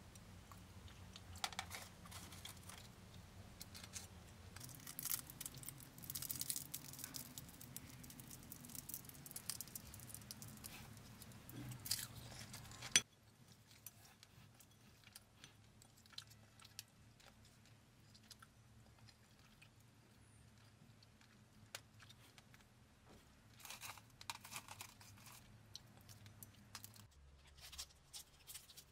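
Faint clicks and scrapes of chopsticks and a wooden spoon working through a ceramic bowl of rice, salmon and kimchi, with crisp crackling as the food is picked up, over a low steady hum. About halfway through the sound drops suddenly after a sharp click, and the crackling returns a few seconds before the end.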